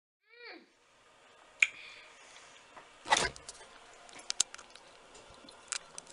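Scattered clicks and knocks of small objects being handled, the loudest a thud about three seconds in, with a brief falling squeak just after the start.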